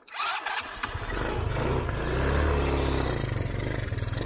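Off-road motorcycle engine catching about a second in, then running steadily with a slight rise in revs.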